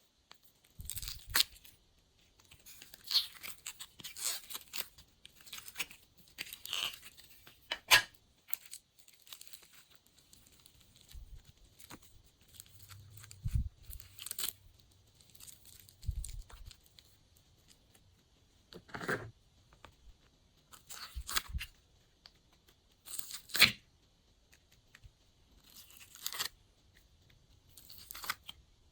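Glossy slime being kneaded and stretched by hand: irregular sticky pops, crackles and tearing sounds.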